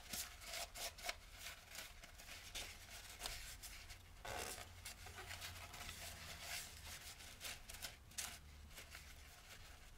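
Paper towel wiped and rubbed over the cast aluminium mating surface of a gearbox bell housing to clean it with brake cleaner: faint, irregular scratchy strokes over a low steady hum.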